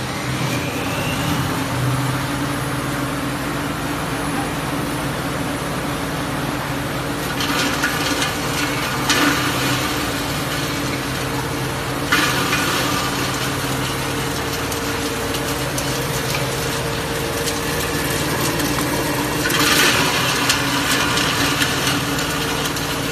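FC-G20 coconut grinding machine running with a steady motor hum. Three stretches of louder grinding noise come about 7 s in, 12 s in and near the end, as fresh coconut is milled into powder.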